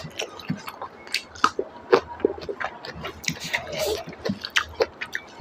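Close-up wet chewing and lip-smacking of a mouthful of pork trotter curry and rice, a quick irregular run of sticky mouth clicks and smacks.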